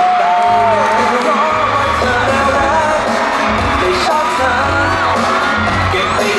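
Live pop song with singing over a band backing, and the audience whooping and cheering over it.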